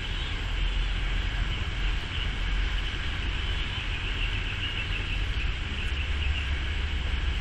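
Steady wind rumbling on the microphone, under an even, high chirring of insects.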